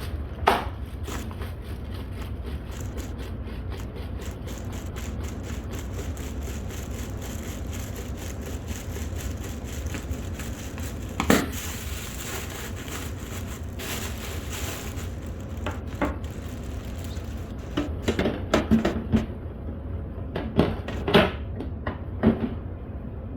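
Handling noises: frequent small crackles and scrapes over a steady low hum, with a sharp knock just after the start, another about halfway, and a cluster of knocks near the end.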